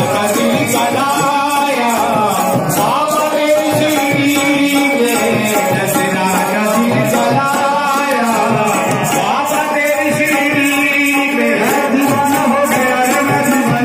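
A man singing a Hindi devotional Sai Baba bhajan over tabla and a steady jingling percussion beat.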